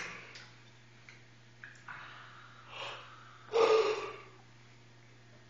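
A person yawning: soft breathy inhalations, then a loud voiced yawn about three and a half seconds in. A low steady hum runs underneath.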